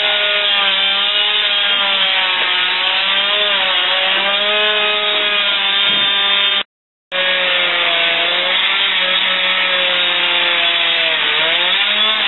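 Gas-powered chainsaw running at high speed with the steady noise of cutting, its pitch wavering up and down as the load changes. The sound cuts out completely for about half a second near the middle.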